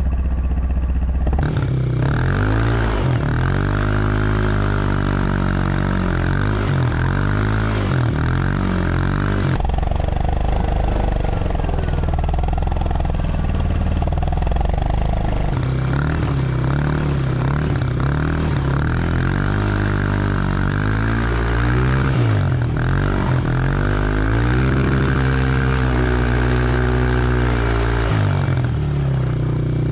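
Small motor vehicle's engine running under a rider, revving up and down in repeated rises and falls of pitch. The sound changes abruptly a few times, about a second and a half in, around ten seconds and again near fifteen seconds.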